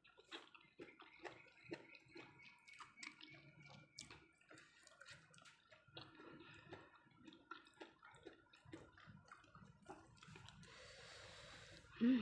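Soft, wet eating sounds: irregular small clicks and squishes of boiled sweet potato leaves being dipped in sambal in a clay mortar and chewed. A soft hiss comes in near the end.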